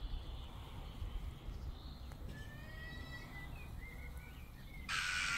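Faint outdoor ambience with a steady low rumble and a bird singing faintly in the middle, a few short gliding notes. Near the end comes a short burst of hiss.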